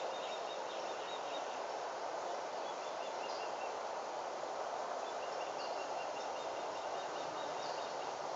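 Steady background noise with small birds chirping in runs of quick, high notes now and then.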